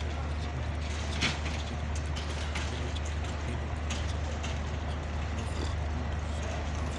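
Diesel locomotive running with a steady low hum as the train comes in slowly, with scattered light clanks and knocks, the sharpest about a second in.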